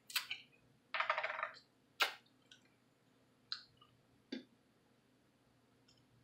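Close-up eating sounds of biting and chewing a homemade battered chicken tender: a few sharp crunches and wet mouth clicks, most of them in the first two seconds, with a longer crackly crunch about a second in and a couple of fainter clicks later.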